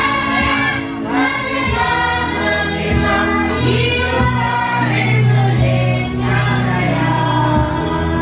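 A girl singing through a microphone and PA over amplified backing music, whose long bass notes hold under the melody.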